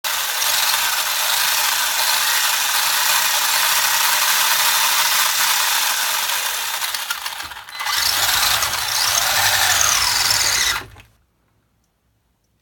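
Wltoys 12428 RC car's electric motor and gearbox whirring, running on a dead battery. The whir dips out briefly about three-quarters of the way through, comes back with its pitch swinging up and down, then cuts off suddenly near the end.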